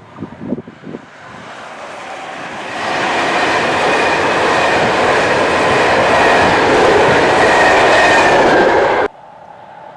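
A train passing close by at speed: its noise builds over about two seconds, holds loud with a faint high whine, then cuts off abruptly near the end.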